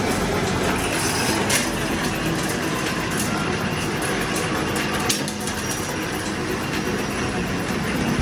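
Coil spring making machine running: a steady mechanical din with a few sharp clicks.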